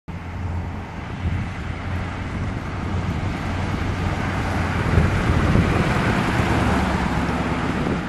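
1955 Ford Thunderbird's 292 Y-block V8 running as the car drives up, its low exhaust note growing steadily louder as it approaches.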